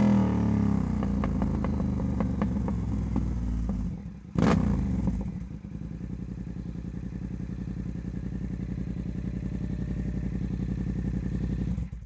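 Yamaha YZF-R7's parallel-twin engine through a Vandemon titanium exhaust with carbon muffler, its revs falling away with a run of pops, a short loud burst about four seconds in, then settling to a steady, lumpy idle that cuts off suddenly at the end.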